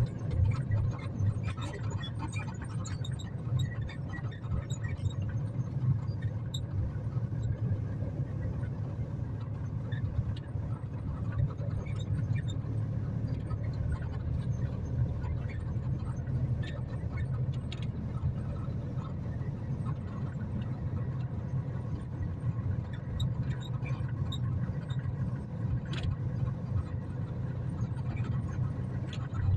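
Strong storm wind buffeting the microphone as a steady, gusting low rumble, with scattered small clicks and taps over it and one sharper tick near the end.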